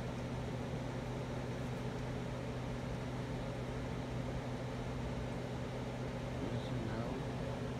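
Spirit box sweeping through radio frequencies: a steady hiss of radio static over a low hum, with a faint brief snatch of sound about six and a half seconds in.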